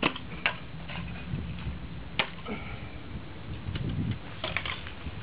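Clicks and clacks of a folding quadcopter frame as its landing legs and arms are folded by hand: a handful of sharp clicks, the loudest about two seconds in, over a low steady rumble.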